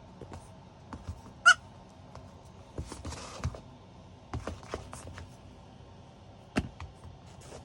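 A four-week-old goat kid gives one short, high squeak about a second and a half in, amid rustling and a few soft knocks.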